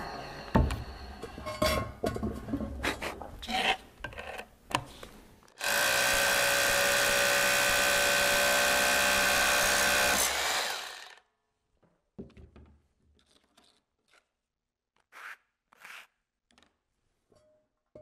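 Corded hammer drill boring into an Indiana limestone column top with a masonry bit, running steadily for about five seconds in the middle and then stopping. Before it come irregular knocks and clatter as the drill and bit are handled, and after it a few faint taps.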